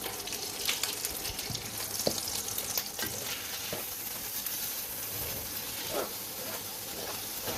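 Meat sizzling as it fries in oil and sauce in a pot, with a spoon stirring and knocking against the pot now and then.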